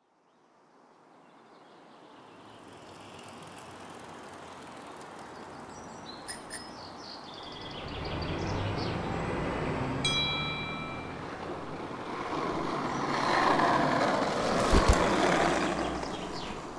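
City traffic noise fading in from silence, the rumble of passing vehicles growing louder in the second half, with a brief high squeal about ten seconds in and a thump near the end.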